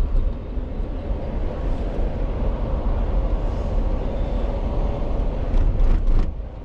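Steady road and engine rumble of a moving car, heard from inside. Near the end there is a brief louder rush of noise.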